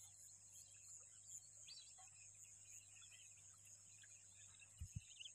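Near silence: faint open-air ambience with a steady high hiss and a few faint bird chirps. Two soft low bumps come near the end.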